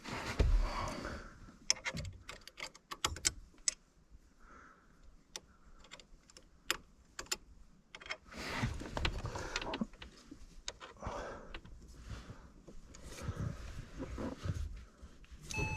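Irregular metallic clicks and clinks of hand tools working the pedal fasteners, with a quick run of clicks early on and rustling of hands moving in the footwell in between.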